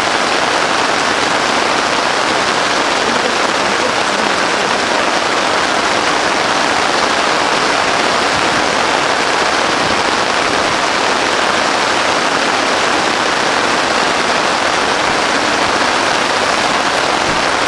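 Steady rain falling on a camping shelter and its makeshift tarp: a dense, even hiss of drops that keeps up without a break.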